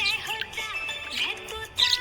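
Budgerigars warbling and chattering: a rapid jumble of short gliding chirps mixed with scratchy bursts.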